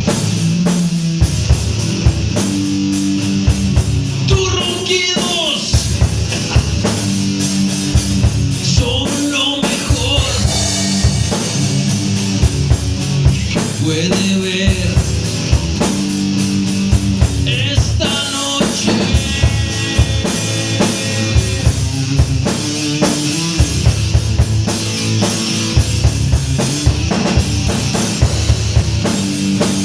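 Heavy metal song with electric guitar and a pounding drum kit, and a voice breaking in every few seconds over the band.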